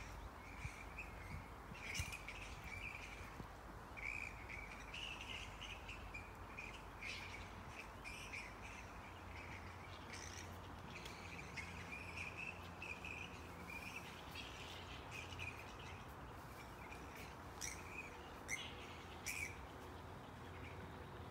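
A roosting colony of grey-headed flying foxes calling: a steady stream of short, shrill, overlapping squawks and chatter, with sharper single calls standing out now and then.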